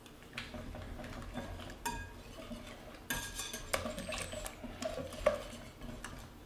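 Wire whisk beating an egg and herb mixture in a glass bowl, the wires scraping and clinking irregularly against the glass, with the sharpest clink a little past five seconds in.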